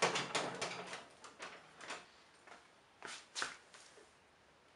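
A quick run of light clicks and rattles in the first two seconds, then two sharper knocks about three seconds in.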